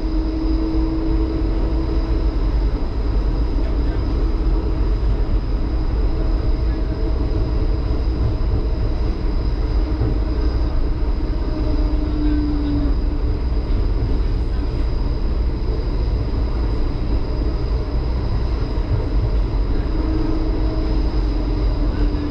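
HermeLijn low-floor tram running along street track, heard from inside the cab: a steady rumble of wheels and running gear under a constant high whine. A lower motor tone comes in and falls away briefly three times, at the start, about halfway and near the end.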